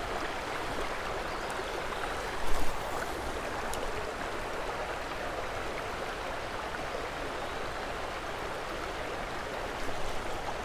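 Steady rushing of creek water running over rocks, with a brief louder noise about two and a half seconds in.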